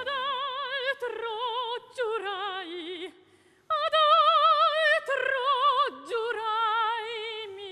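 Operatic soprano singing a recitative-like passage with a wide vibrato, the piano silent. Her phrases break off briefly several times, with a longer pause about three seconds in, and the line drifts slightly downward in pitch.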